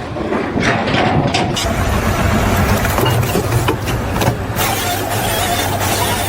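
An engine running steadily with dense mechanical noise, and a few sharp knocks over it.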